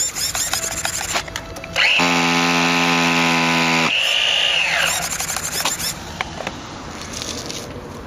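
Start attempt on a Hobao Hyper 28 nitro RC engine: after some clicks and rattles, a loud, steady whirring hum runs for about two seconds and stops sharply, followed by a falling whine as it winds down, then more handling clicks.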